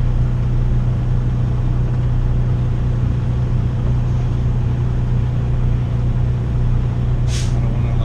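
Semi-truck diesel engine running, heard from inside the cab as a steady low drone. A short hiss comes about seven seconds in.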